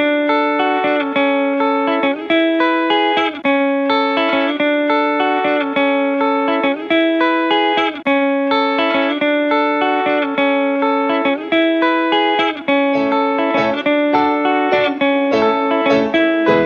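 Background music: a guitar playing clear plucked notes in a steady phrase that repeats about every four seconds.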